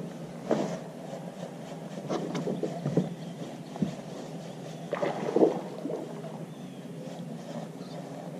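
Steady low rush of water and wind around a bass boat, with scattered knocks and scuffs on the deck as the angler shifts his footing and fights a fish on a jig.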